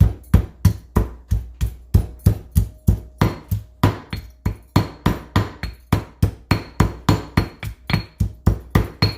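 Peeled fresh ginger being pounded to crush it, with steady, even strikes about three a second.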